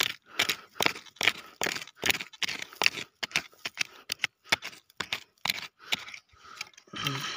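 A wooden stick digging and scraping into dry soil and grass: a rapid, irregular run of short scrapes and crunches, two or three a second.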